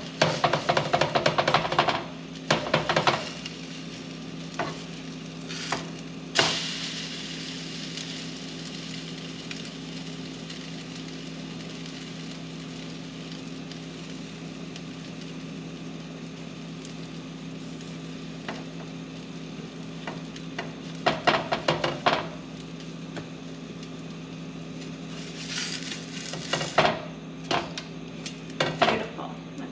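Egg-soaked bread frying in butter in a pan, a steady sizzle, with bursts of a spatula scraping and tapping against the pan at the start, once about six seconds in, and again in the last third.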